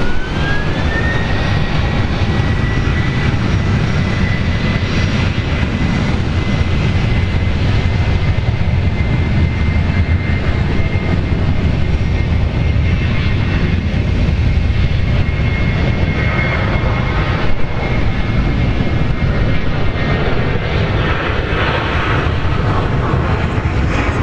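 Boeing 777-200 jet engines running at taxi power: a steady deep rumble with a high whine that rises over the first second and then holds level.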